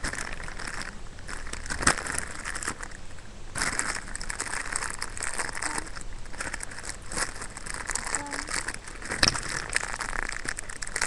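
Continuous crinkling and rustling as hands handle squishy toys right against the phone's microphone, with two sharp knocks, about two seconds in and about nine seconds in.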